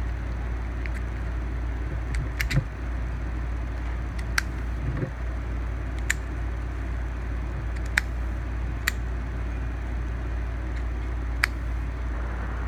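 Master Lock padlock being worked with its key: several sharp metallic clicks, spaced a second or more apart, as the key turns and the shackle pops open and snaps shut, over a steady low hum.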